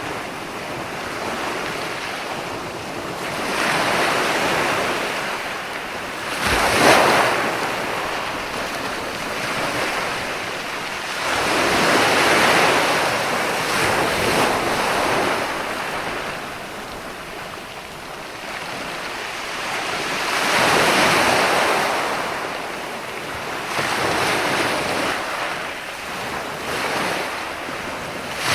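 Ocean waves breaking and washing onto a shore, in slow swells of surf hiss every few seconds. The sharpest crash comes about seven seconds in.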